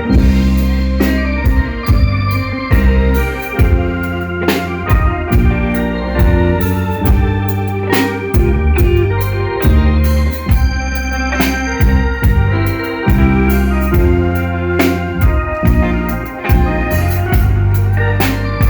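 Live instrumental band music led by an electronic organ-style keyboard, over heavy bass notes and regular drum hits.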